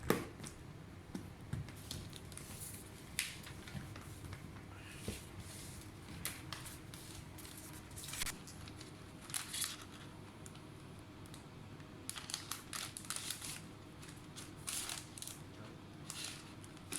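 Intermittent rustling and scraping handling noises: short, hissy scrapes every second or so, busier in the second half, with a sharp click at the very start.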